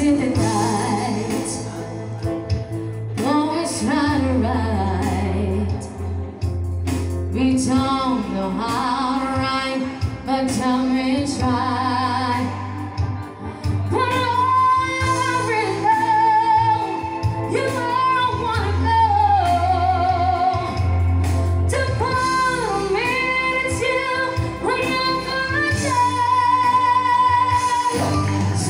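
Live band playing, led by a female singer holding long notes with vibrato over electric guitars and a steady bass line.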